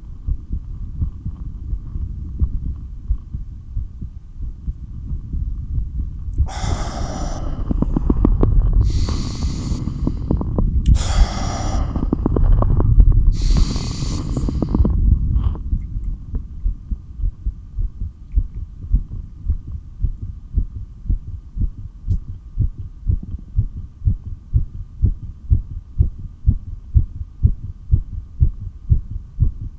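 Pounding heartbeat heard through a stethoscope, a steady train of low thumps. From about six to fifteen seconds in, four loud breath sounds follow one another over it: one of the few breaths taken between long breath holds.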